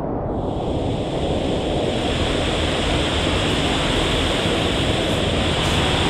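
Monsoon-fed stream cascading over rocks: a steady rush of white water that grows fuller and a little louder over the first couple of seconds.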